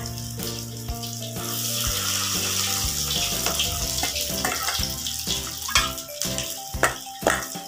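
Corn fritters sizzling in shallow oil in a wok, a steady hissing fry, with a few sharp clicks near the end. Background music with held tones plays under it.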